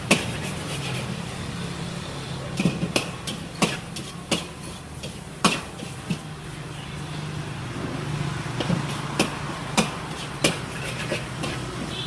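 Irregular sharp knocks and clinks of kitchen utensils against cookware, about one every half second to a second, over a steady low hum.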